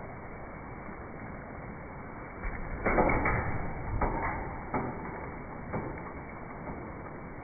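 Trampoline springs creaking and the mat thumping as a child lands and bounces, a run of knocks starting about two and a half seconds in, loudest around three seconds in. Under it, a steady hiss of rain.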